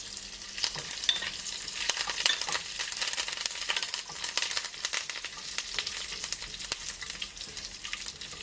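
Mustard seeds, curry leaves and dried red chillies frying in hot coconut oil for a tempering: a steady sizzle with many sharp crackles and pops.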